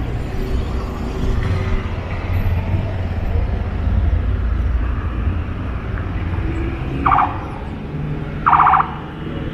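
Street traffic: cars running by with a steady low rumble, and two short beeps about a second and a half apart near the end.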